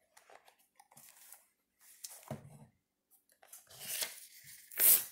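A shrink-wrapped cardboard trading-card box handled and turned over, its plastic wrap crinkling in short rustles, with a soft bump about two seconds in and the loudest rustle near the end.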